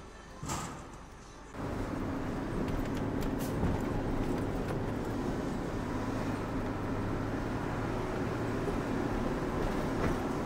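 Truck engine and road noise heard while riding on the truck, steady and loud. It cuts in suddenly about a second and a half in, after a quieter start with a few brief knocks.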